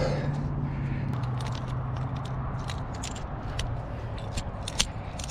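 Scattered sharp clicks and scrapes, fitting metal trad-climbing gear clinking and a climber's hands and shoes scraping on granite, over a steady low hum. The loudest click comes near the end.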